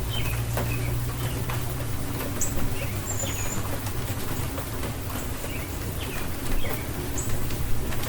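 Steady rain falling with scattered drips and taps, while small birds give short chirps now and then over a low steady hum.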